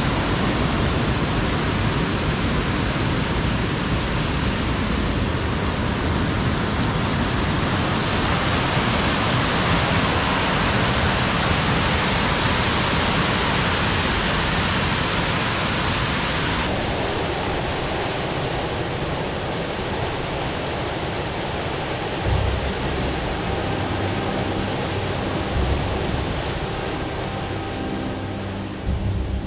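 Steady rushing of a waterfall plunging into a rock pool in a mountain gorge. About two-thirds through the sound changes abruptly to a duller rush, with a couple of low thumps, and music begins just at the end.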